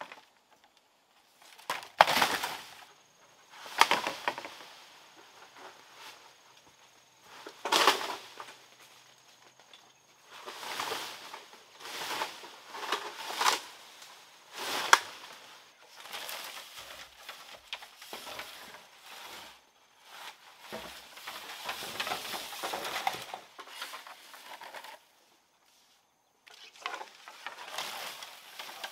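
Bamboo being cut and hauled: a handful of sharp knocks in the first half, then long stretches of rustling leaves and scraping as felled bamboo poles are dragged through the undergrowth.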